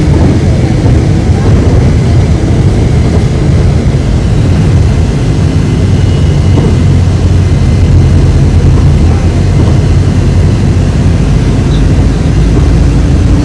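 Steady low rumble of a moving bus heard from inside the cabin: engine and road noise.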